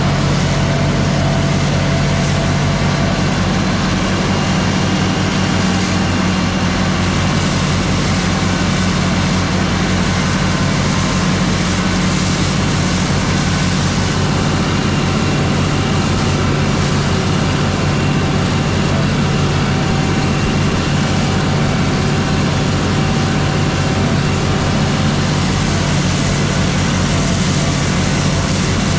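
Tractor's diesel engine running at a steady speed, an even, unchanging drone.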